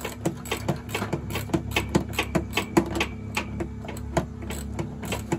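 Hand ratchet wrench clicking in quick, uneven runs as a bolt is turned with a socket on an extension, over a steady low hum.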